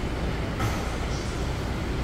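Steady background noise of a subway station concourse: a low rumble with an even hiss over it.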